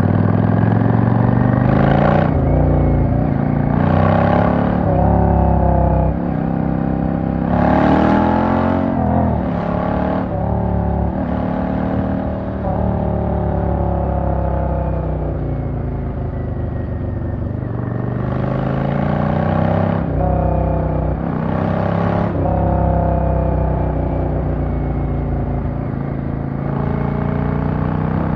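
Yamaha V-Star 650's air-cooled V-twin under way, its note climbing as it accelerates and dropping sharply at each gear change, several times in the first ten seconds and again around twenty seconds in, with a slower fall in pitch in between.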